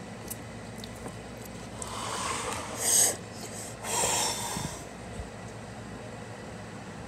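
A person blowing hard breaths out through pursed lips, two loud hissy bursts about three and four seconds in, huffing at the burn of extra-spicy ramen.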